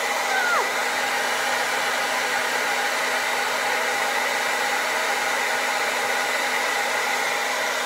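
NuMe hair dryer running steadily on its medium setting, an even rush of blown air with a few steady motor tones in it.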